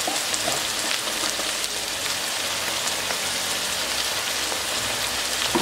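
Hot oil sizzling steadily around boiled chickpeas and spices frying in a pan.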